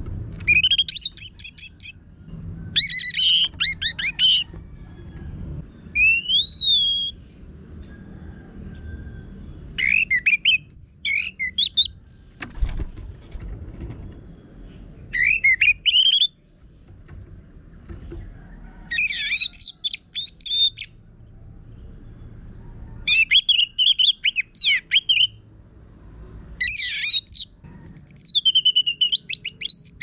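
Orange-headed thrush singing in a harsh, rough-toned voice, in about nine bursts of a second or two each. Each burst is a quick run of sweeping whistles and chattering notes, with short pauses between bursts.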